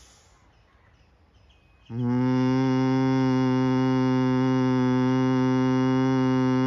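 A man humming on a long exhale in bhramari (honeybee breath) pranayama: after about two seconds of near quiet, a low, buzzing hum starts suddenly and holds at one even pitch.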